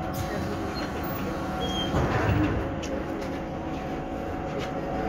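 Inside a VMZ 5298.01 Avangard trolleybus on the move: a steady electric drive whine of several held tones over the low rumble of the running bus, with occasional clicks and rattles and a brief louder rumble about two seconds in.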